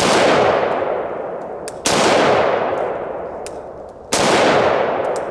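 AR-15 rifle firing 55 grain 5.56 rounds: three single shots about two seconds apart, each followed by a long echo that fades away.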